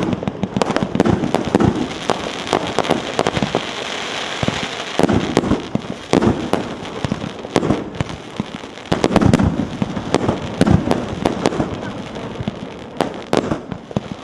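A 150-shot, 1.2-inch firework cake firing: a rapid, irregular string of shots and bursts.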